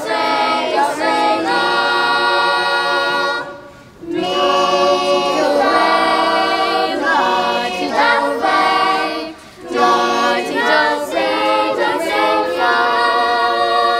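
A mixed group of voices singing together unaccompanied, in sung phrases of held notes broken by short pauses about four seconds in and again about nine and a half seconds in.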